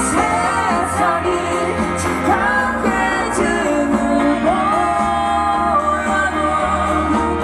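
Pop music with singing.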